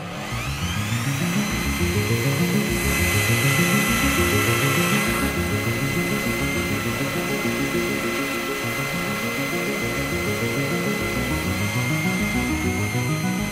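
Drill press motor spinning up and running with a steady high whine as a twist drill cuts a pilot hole in steel bar stock, the cutting noise heavier between about three and five seconds in. Background music plays underneath.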